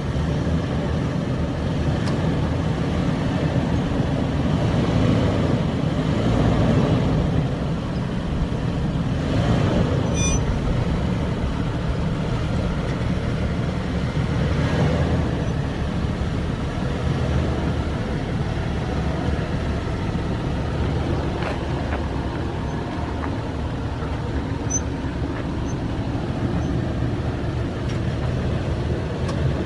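Toyota 4Runner's 4.0-litre V6 running at low speed as the truck crawls over a rough off-road trail: a steady low rumble, with a few light clicks and knocks now and then.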